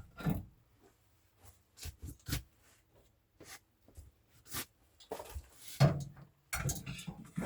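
Scattered clicks and knocks of a dish being set into a microwave and the door handled, with a faint steady hum from about a second in.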